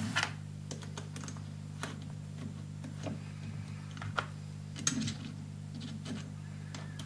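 Irregular small clicks and taps of steel parts being handled and fitted as the diamond holder is mounted on a home-built angle dresser, over a steady low hum.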